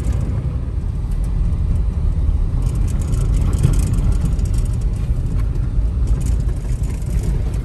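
Vehicle driving off-road on an unpaved track, heard from inside the cabin: a steady low engine and road rumble with scattered clicks and rattles.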